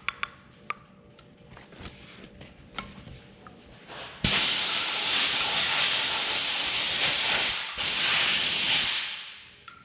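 Light clicks of metal parts being handled, then a loud steady hiss of a pressurised blast from a nozzle. It starts suddenly about four seconds in, breaks off for a moment near eight seconds, and fades out about a second later.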